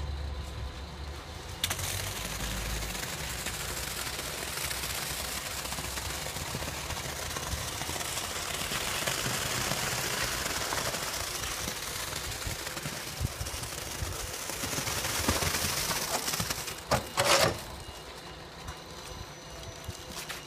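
Wet concrete pouring out of a crane-hung concrete skip as its gate is opened: a steady rushing noise that starts suddenly about two seconds in and dies away after about fourteen seconds. A few sharp knocks follow near the end.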